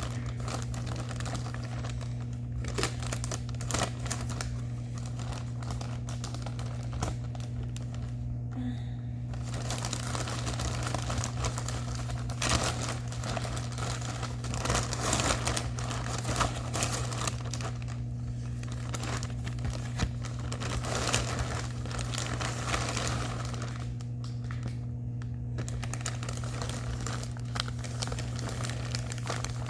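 Plastic packaging being handled and unwrapped: irregular crinkling and rustling, pausing briefly twice, over a steady low hum.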